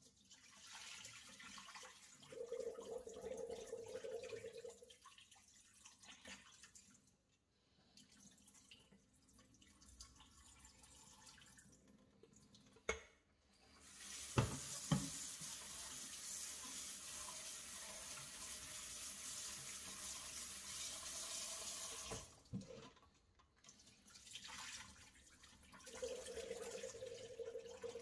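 Water poured from a stainless steel pot into a stainless steel kitchen sink, then a kitchen tap running steadily into the pot for about eight seconds, and water poured out of the pot again near the end. A few sharp knocks come just before the tap runs.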